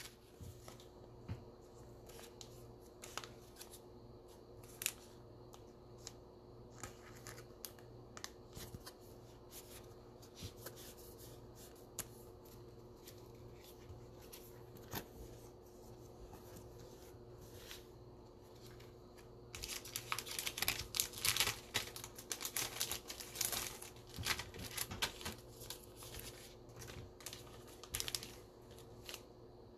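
Trading cards being handled and slipped into plastic sleeves: scattered light clicks and taps, then several seconds of dense plastic crinkling and rustling about two-thirds of the way through.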